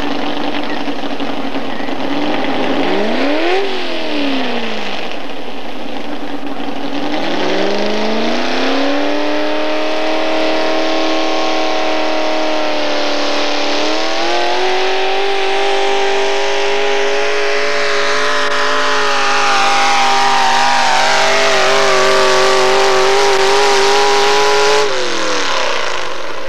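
Modified four-wheel-drive pulling truck's engine at full throttle, dragging a weight-transfer sled. After a quick blip of the throttle, the engine note climbs and holds high, steps higher about halfway through, holds again, then falls away near the end.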